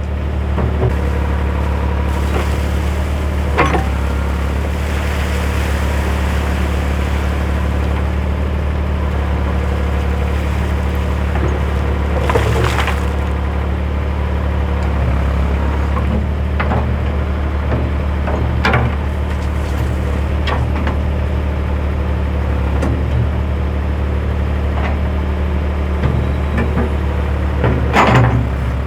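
Backhoe engine running steadily at a constant speed, with a few brief knocks and clanks over it.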